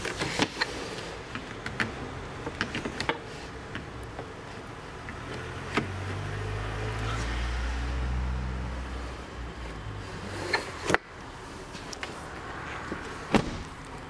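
Ford S-Max rear door power window running for about five seconds with a low motor hum, ending in a sharp knock as it stops. Scattered clicks and knocks of hands on the door trim come before it, and another knock comes near the end.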